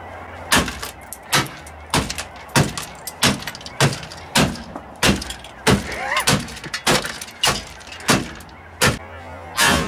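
Repeated hard blows on a junked vehicle, one sharp strike about every 0.6 seconds at an even pace, as something is being beaten or broken.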